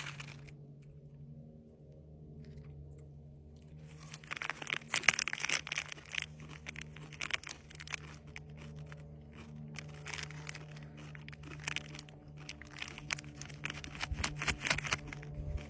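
Plastic candy wrapper of a Reese's Pieces pack crinkling and crackling as it is handled and folded, in repeated bursts starting about four seconds in.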